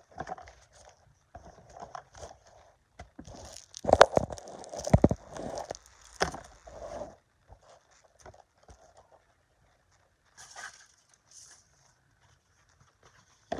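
Small objects being handled and rummaged through in a bin of fidget toys: irregular crinkling, scraping and rustling with a few sharp clicks and knocks. The handling is busiest and loudest about four to five seconds in, then thins out to occasional faint noises.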